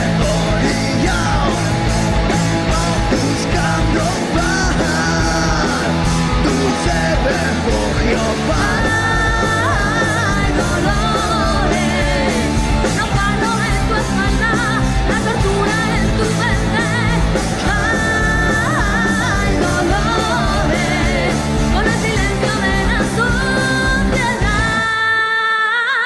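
Rock song played by a band, with a steady drum beat, electric guitars and a lead singer. Near the end the drums and bass drop out, leaving a few held notes.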